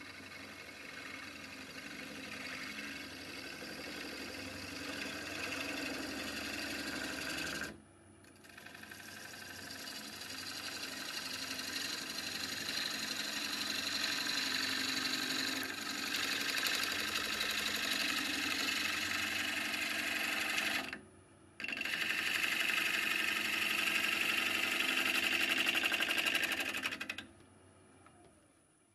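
A turning tool cutting a stone pine blank spinning on a wood lathe: a steady hiss and rasp of the shaving cut. It breaks off twice for a moment as the tool is lifted, then the cutting stops near the end.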